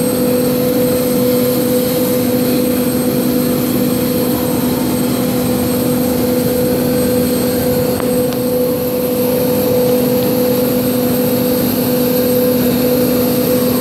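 Sikorsky UH-60 Black Hawk helicopter's twin turboshaft engines running steadily with the main rotor turning slowly: a loud, even turbine whine with two steady tones over a rush of noise.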